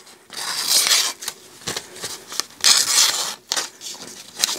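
A kitchen knife's edge slicing through a sheet of paper in about three long, hissing, rustling strokes: a paper-cutting test of an edge just realigned on a ceramic honing rod.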